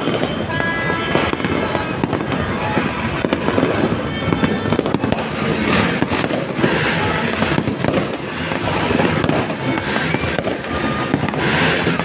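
Fireworks display: a dense, continuous barrage of bangs and crackling.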